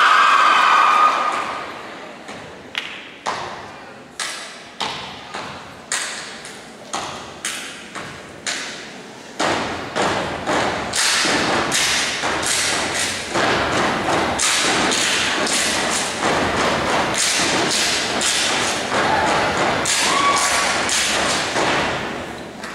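Step team stomping and clapping in unison on a wooden stage: sharp, evenly spaced beats about twice a second, turning louder and denser from about nine seconds in. Crowd cheering dies away about a second in.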